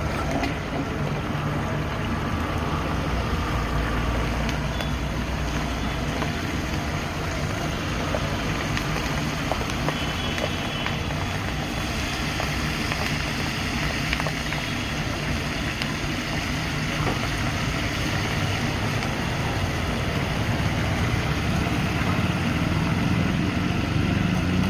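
Spinach and moong dal pakoras deep-frying in a kadhai of hot oil, a steady sizzle over a continuous low rumble.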